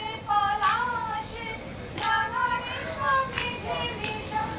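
A small child's high voice singing in short phrases.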